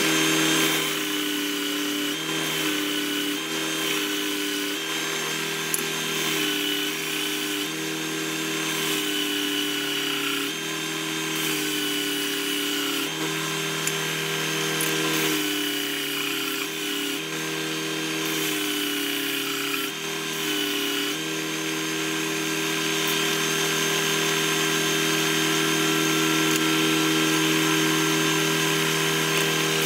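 Bench belt-and-disc sander running steadily. Its motor hum dips in pitch several times as a small wooden dovetail box is pressed against the sanding disc and belt.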